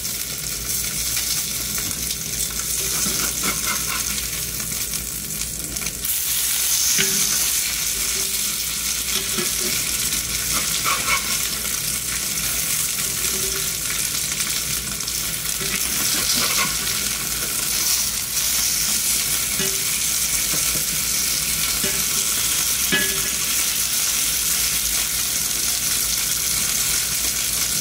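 Salmon croquettes sizzling as they fry in a cast iron skillet, with a few brief scrapes of a metal spatula and tongs in the pan as they are turned. The sizzle gets louder about six seconds in.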